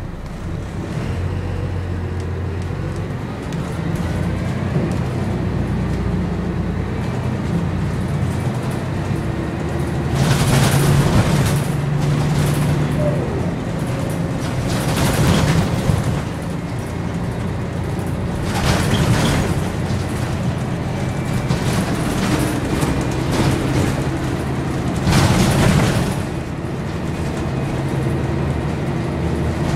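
Interior sound of a Scania L113CRL single-deck bus on the move, its rear-mounted 11-litre straight-six diesel running and rising and falling in pitch. Several louder bursts of rushing noise, each lasting about a second, sound over the engine.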